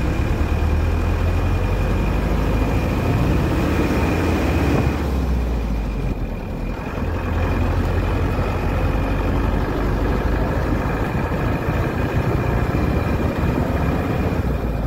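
Bus engine and road noise heard from inside a moving bus: a loud, steady low rumble with a faint high whine. It eases for a moment about six seconds in, then picks up again.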